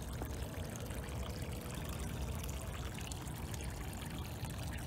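Shallow stream water trickling steadily.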